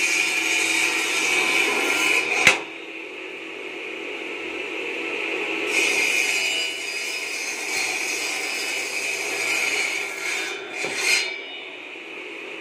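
Twelve-inch circular saw blade of a mini bamboo-cutting machine, driven by a half-horsepower low-speed electric motor, cutting through bamboo. The cut ends with a sharp crack about two and a half seconds in, and the blade keeps spinning more quietly. A second cut begins about six seconds in and finishes near eleven seconds.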